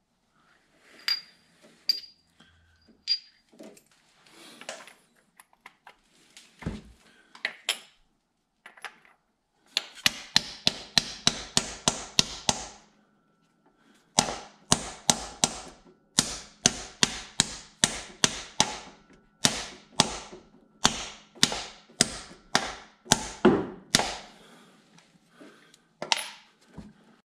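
Hammer driving a new freeze plug into the cast engine block of an Audi AAN 2.2T engine. A few scattered light taps and clicks come first, then runs of quick, sharp metallic strikes, about three to four a second, with brief pauses between runs.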